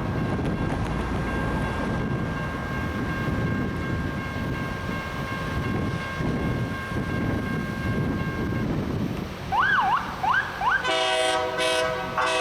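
Loram rail grinder train working along the track: a steady rumbling grind with a thin high whine over it. Near the end come a few quick rising-and-falling siren whoops, then loud locomotive horn blasts with short breaks between them.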